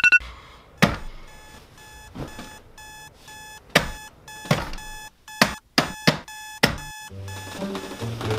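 Digital alarm clock beeping in a steady rapid pattern, about three short beeps a second, with several loud thumps over it. Low music comes in near the end.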